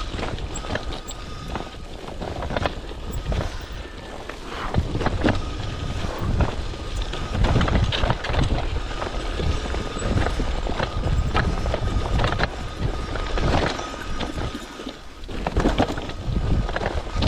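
Cyclocross bike ridden fast over a rocky dirt trail: the bike rattles and clatters with irregular knocks as the tyres hit stones, over a steady rumble of wind on the microphone.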